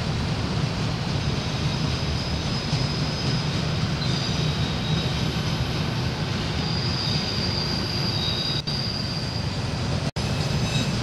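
Freight train of autorack cars rolling past: a steady rumble of wheels on rail, with a thin high-pitched wheel squeal coming and going.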